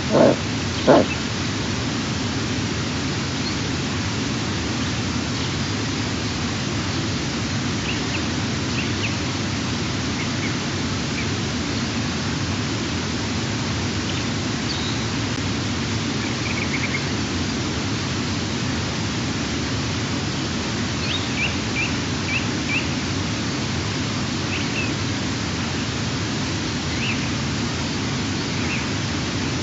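A few short, low calls from a female eastern imperial eagle in the first second, then a steady hiss with faint, scattered chirps of small birds.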